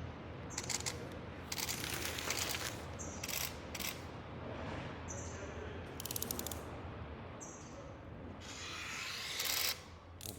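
Truck-factory shop-floor noise: a steady low hum with several short bursts of hissing, rattling machinery, the longest near the end.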